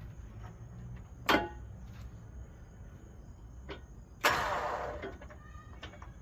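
Electric winch motor bumped on twice in short bursts, turning the drum; the first is brief, the second lasts about a second and winds down. A steady low rumble runs underneath.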